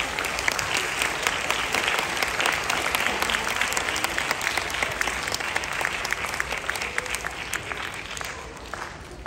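Audience applauding right after a song ends: dense, steady clapping that thins out and dies away over the last two seconds or so.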